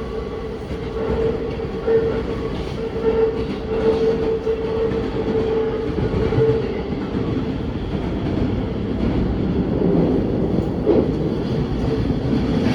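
Electric commuter train running, heard from inside the car: steady rumble with a hum that fades out about halfway through, and scattered clicks of the wheels on the rail joints as it pulls into a station.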